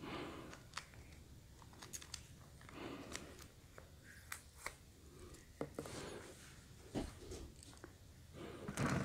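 Small plastic sauce sachet crinkling and clicking as it is handled and torn open: faint, scattered sharp ticks and crackles.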